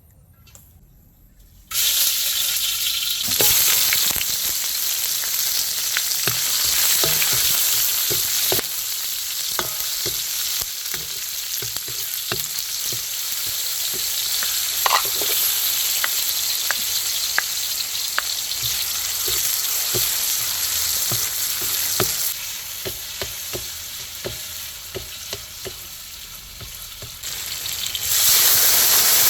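Food frying in hot oil with a loud sizzle that starts suddenly about two seconds in, with scattered clicks of a utensil stirring against the pan. The sizzle drops lower for a few seconds and swells again near the end.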